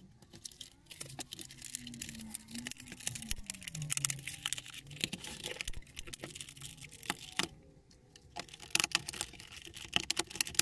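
Plastic housing parts of a Ford Focus mk2 instrument cluster being handled and pressed together. Many irregular clicks, taps and light rattles as the front lens, bezel and back cover snap into place.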